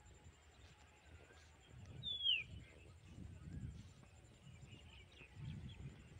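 A bird gives a single clear call that slides down in pitch, about two seconds in, over a faint open-country background with low rumbles.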